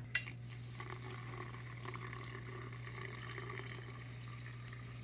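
Water pouring in a faint, steady stream onto coarse-ground coffee to dampen it for cold brew.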